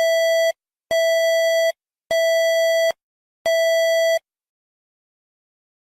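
Electronic alarm beeps in an EAS-style alert: a steady, buzzy tone sounded four times, each beep nearly a second long with short gaps between them.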